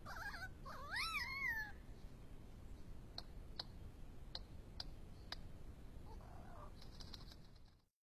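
Superb lyrebird calling: quick chirps and a slurred, sliding whistle, then five sharp clicks about half a second apart and a brief buzzy call, before the sound cuts off just before the end.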